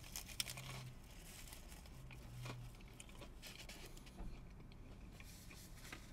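Faint crunching and chewing of a bite of sweet waffle cone filled with chicken pieces, heard as scattered soft crackles and clicks.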